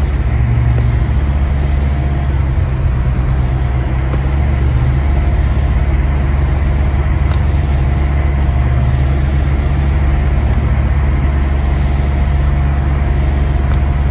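Car driving along a snowy road, heard from inside the cabin: a steady low rumble of engine and tyres.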